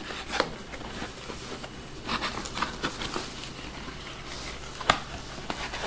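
A cardboard box being handled and opened: scattered light taps, scrapes and rustles of cardboard, with one sharper click about five seconds in.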